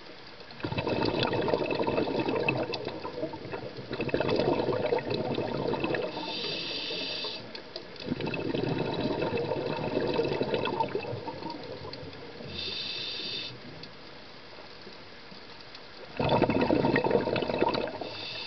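Scuba diver breathing through a regulator underwater: long bubbling exhalations, each followed by a shorter, quieter hissing inhalation, about three breaths in all.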